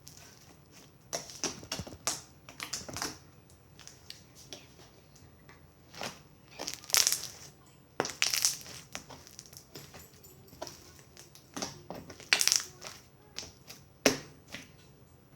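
Slime being kneaded and stretched by hand, giving irregular bursts of sticky crackles and pops, with the loudest bursts about halfway through and near the end.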